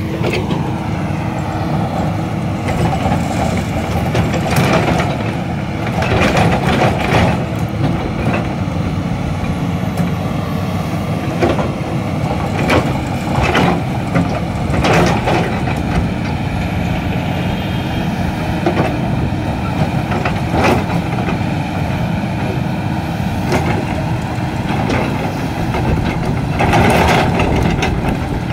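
Komatsu PC300 hydraulic excavator running its diesel engine steadily under working load. Sharp clanks and knocks come every few seconds as the bucket digs into rocky earth.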